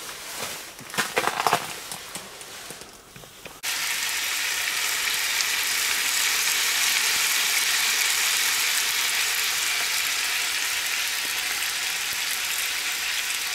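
Bacon sizzling steadily in a frying pan on a camp stove, starting abruptly about three and a half seconds in. Before that come a few seconds of irregular knocks and rustling from handling.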